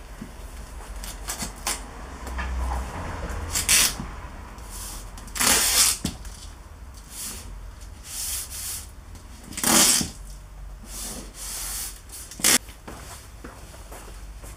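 A hand trigger sprayer misting detailing product in about four short, loud hissing sprays, with quieter rubbing and handling sounds between them.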